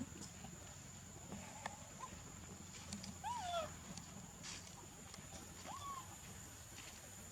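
Baby macaque giving two short, faint, whining calls, one a little past three seconds in and one near six seconds, with faint clicks around them.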